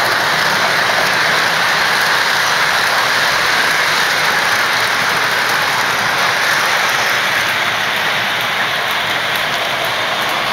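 O-gauge model trains running on three-rail track: a steady rolling rattle of metal wheels on rails mixed with the whir of their motors.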